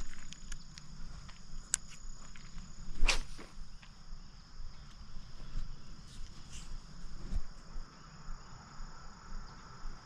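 Insects chirring in a steady high drone, with scattered small clicks and rustles and one loud, brief swish about three seconds in.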